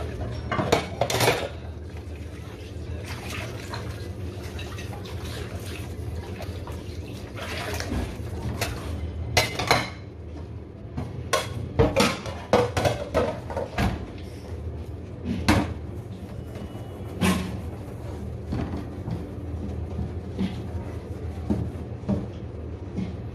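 Dishes being hand-washed at a stainless-steel kitchen sink: ceramic plates and cups clink and knock against each other and the sink in irregular clatters, with tap water running.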